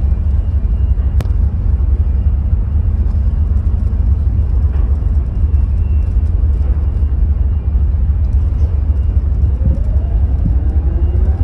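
Steady low rumble of wind buffeting the microphone on a ship's open deck, over a faint steady hum from the ferry's machinery, with one sharp click about a second in.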